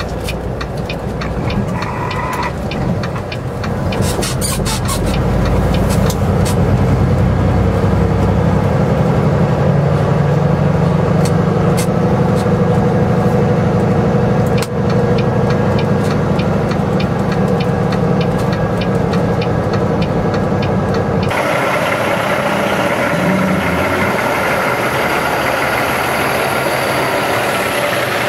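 Red Volvo VNL semi truck, first heard from inside the cab as a steady low engine and road drone that builds a few seconds in, with scattered clicks at the start. About three-quarters of the way through the sound changes abruptly to the truck running, heard from outside.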